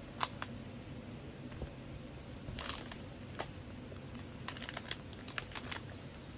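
Scattered light clicks and taps, with a quick run of them about four and a half seconds in, over a low steady hum.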